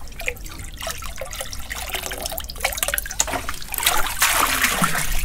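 Water trickling, dripping and splashing in a bucket as a freshly scaled fish is handled in it, with a louder rush of water about four seconds in.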